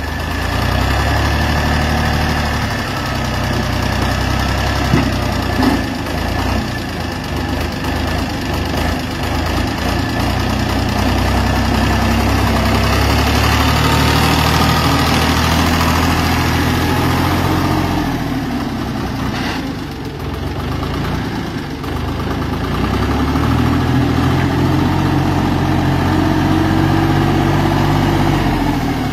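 Champ MS4340 4x4 farm tractor's diesel engine running while the tractor drives and works. The engine pitch rises and falls a few times with the throttle.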